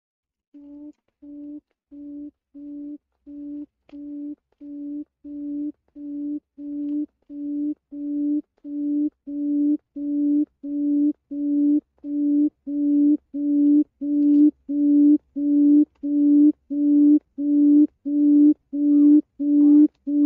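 Quail (chim cút) call: a long series of low, even hoots, about one and a half a second, that grow steadily louder.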